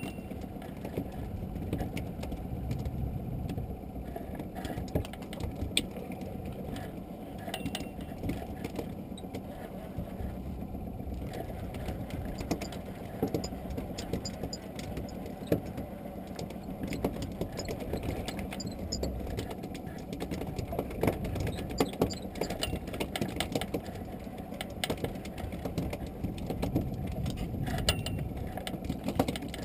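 Steady, muffled wind and sea noise, with scattered clicks and knocks from a fishing rod and spinning reel being worked as a small fish is reeled in.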